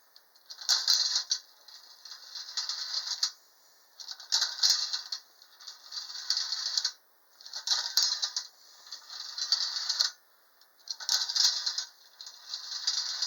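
1940 Wolverine Jet Roller Coaster tin toy run by a hand crank in place of its missing wind-up motor: metallic clattering and rattling in four stretches of about two to three seconds each, with short pauses between.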